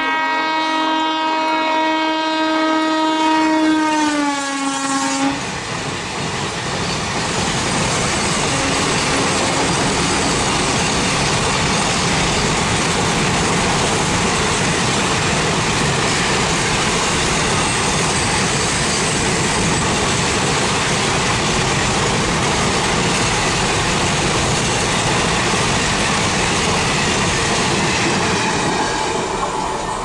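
WAG7 electric locomotive's horn sounding one long blast at speed, its pitch dropping just before it cuts off about five seconds in as the locomotive passes. Then the long rake of container wagons rushes past with a steady noise of wheels on rail, falling away near the end.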